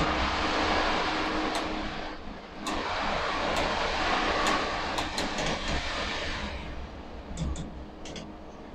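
Overhead crane machinery and steel-plant din heard inside the crane cab: a loud, steady noisy rumble with a faint hum and scattered light clicks. It dips briefly about two seconds in and falls away after about six and a half seconds.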